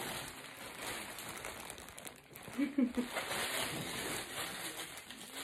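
Crinkling of a plastic mailer bag and clear plastic wrapper as a garment is handled and pulled out, with a short vocal sound about two and a half seconds in.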